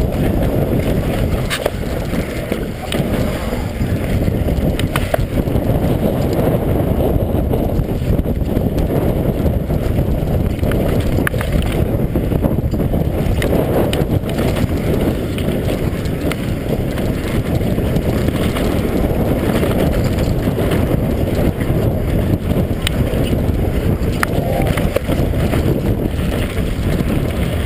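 Wind buffeting the microphone of a helmet-mounted camera on a mountain bike riding down a dirt trail: a steady, loud low rush mixed with tyre noise on the dirt. Occasional small clicks and knocks come from the bike.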